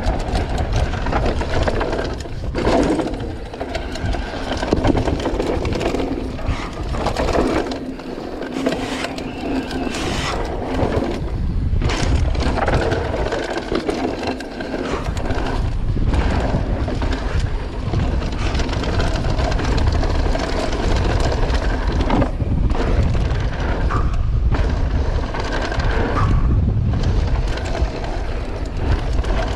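Electric mountain bike descending a rough dirt trail at speed: a constant wind rumble on the microphone over the crunch of tyres on loose dirt and rock, with the bike rattling and knocking over bumps.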